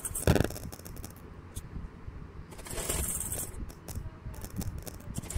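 Domestic sewing machine stitching a folded hem edge in short runs, its mechanism clicking, with a sharp clack just after the start and cloth rustling as the fabric is shifted.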